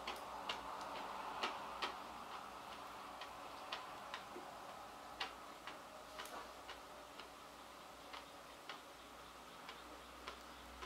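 Wood fire in an irori hearth crackling: irregular sharp pops and ticks, about two a second, over a faint steady hiss.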